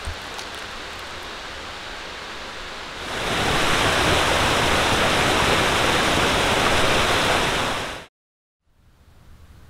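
Steady rush of flowing water, like a mountain stream. It gets much louder about three seconds in and cuts off suddenly a little after eight seconds.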